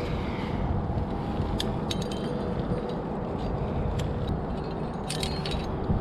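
Metal carabiners clinking and jangling on a climbing harness as a quickdraw is taken off the rack. There are a few sharp clinks about one and a half to two seconds in and again near the end, over a steady rumble of wind on the microphone.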